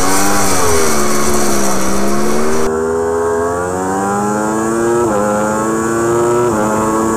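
Yamaha R1 superbike's inline-four engine accelerating hard, its pitch climbing steadily, with two quick upshifts about five and six and a half seconds in, each a sudden drop in pitch. A steady hiss over the engine cuts off about three seconds in.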